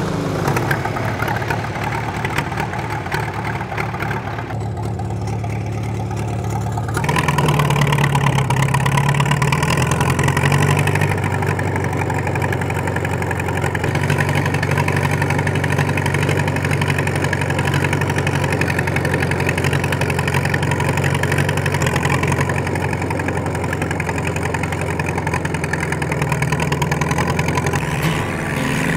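1942 Caterpillar D2 crawler's four-cylinder diesel engine running steadily just after being started. It gets louder about seven seconds in and keeps running evenly from there.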